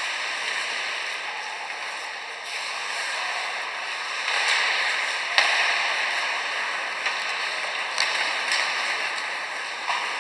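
Ice hockey play on a rink: several sharp cracks of sticks striking the puck and the puck hitting the boards, over steady arena noise.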